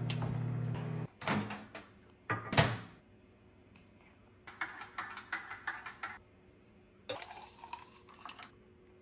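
Kitchen dishes and utensils being handled while making breakfast: a couple of knocks, the loudest about two and a half seconds in, then two runs of rapid clinking and clattering. A steady hum at the start cuts off about a second in.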